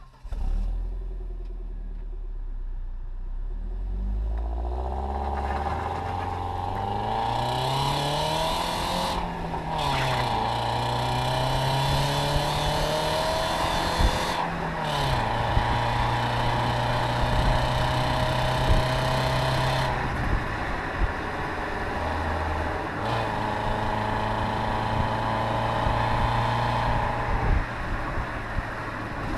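Audi A4 B5 1.8 four-cylinder petrol engine with its original exhaust, pulling from low revs. Its pitch climbs over several seconds, drops back and climbs again a couple of times, then holds steady, with a rushing noise underneath.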